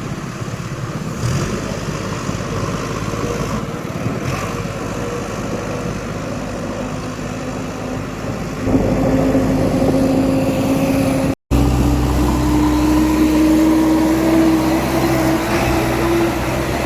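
Heavy diesel engine of a farm machine running, stepping up sharply in loudness about halfway through and then climbing slowly in pitch as it is revved under load. A brief dropout about two thirds of the way through breaks the sound.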